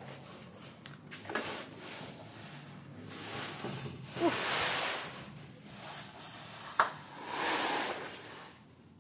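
Plastic tarpaulin rustling and crinkling as it is pulled and spread over a load, in two longer swells about three and seven seconds in.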